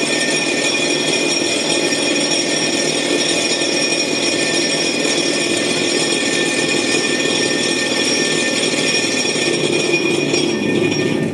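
Cincinnati 10,000 lb welding positioner's electric drive running, a steady mechanical drone with high whining tones over it, which slows and stops near the end.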